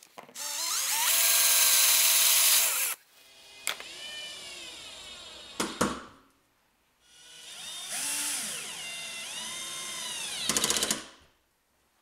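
Cordless drill running in several bursts: a long loud run as a twist bit drills through metal sheet, then shorter runs whose whine slides up and down in pitch as the motor speeds up and slows. A couple of sharp clicks come near the middle, and a fast run of clicks near the end.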